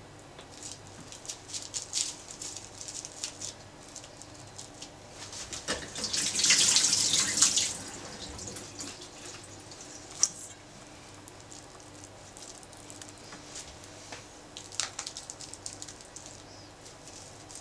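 Sushi rice being pressed and spread over a nori sheet by hand, with scattered soft sticky clicks and pats. In the middle, about two seconds of running or splashing water as the hands are wetted, the loudest sound, followed by one sharper click; a faint steady hum lies underneath.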